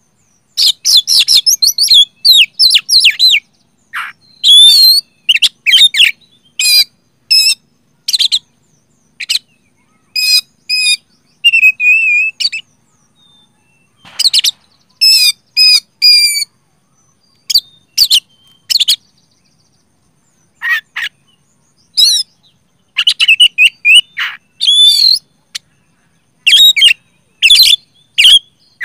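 Caged Oriental magpie-robin singing loudly in bursts of clear whistled phrases and rapid chattering notes, with short pauses between phrases.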